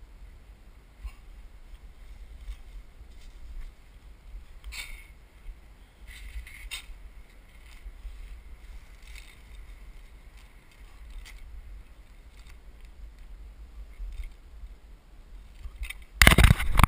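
Light clinks and rustles from handling a homemade cast net and its galvanized chain leadline, over a steady wind rumble on the microphone. A much louder burst of noise comes near the end.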